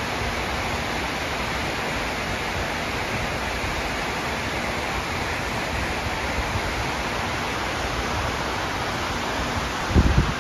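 Steady rushing of water cascading down the granite walls of the 9/11 Memorial reflecting pool. A brief low thump comes near the end.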